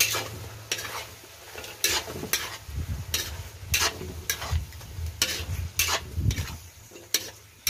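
Spatula scraping and striking against a wok as chicken feet are stir-fried in a sizzling soy-vinegar sauce, about a dozen irregular strokes over a steady frying hiss. A low rumble runs under the middle of it.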